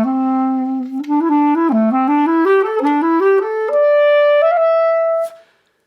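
Solo clarinet playing an interlude: a held low note, then a climbing run of short notes rising to a long high note that fades away near the end.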